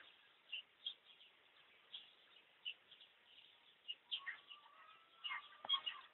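Birds chirping faintly in short, scattered high calls, with a few sharp clicks near the end.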